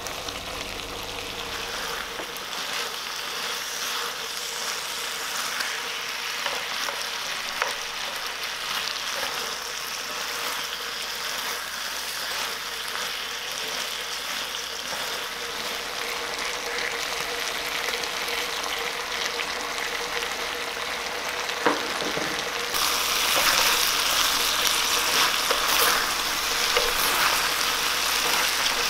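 Spicy chicken, rice cakes and cabbage sizzling in a cast-iron pan, with light scrapes and knocks from a wooden spatula stirring them. The sizzling gets clearly louder over the last several seconds.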